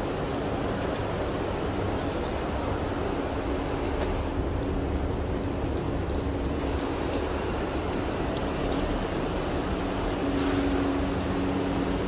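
Water pouring from a drainpipe and splashing onto a concrete ledge, over a steady mechanical hum and rumble that grows a little louder near the end.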